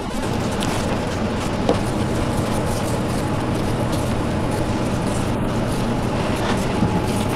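Steady, even noise with a low constant hum underneath, unchanging throughout; no distinct handling sounds stand out.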